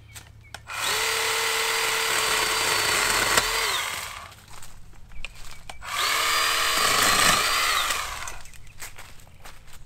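Litheli 40V battery pole saw's electric motor and chain running in two bursts, about three seconds and then about two, each a steady whine that winds down in pitch when the trigger is let go.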